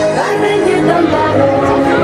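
Music with singing, loud and steady.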